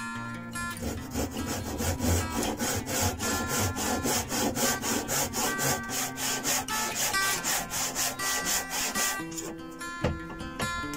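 Spear & Jackson hand saw crosscutting a piece of oak: quick, regular push-pull strokes, about three a second, that start under a second in and stop about nine seconds in.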